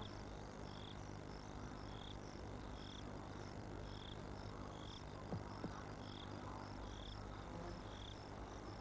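An insect chirping faintly in short regular pulses, about once a second, over a low steady background hum, with two soft ticks about five seconds in.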